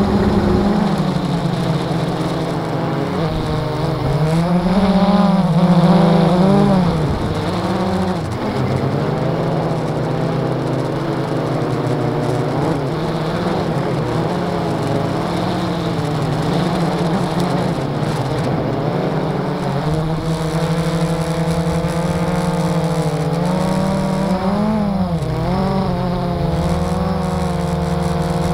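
Blade 350 QX quadcopter's four motors and propellers humming steadily, heard from the camera on board, as it flies and comes down toward the ground. The pitch rises and falls briefly about five seconds in and again near the end.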